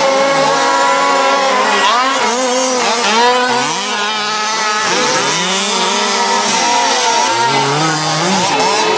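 Several fifth-scale petrol RC cars' small two-stroke engines buzzing together, their pitches overlapping and rising and falling as they are throttled up and backed off.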